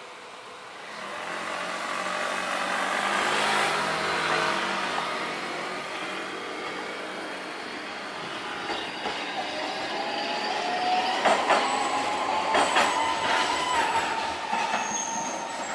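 Hankai Tramway streetcars passing on street track, led by the low-floor Sakai Tram 1003: a steady running rumble that swells as the tram goes by. Later a rising whine and several sharp wheel clacks over the rail joints.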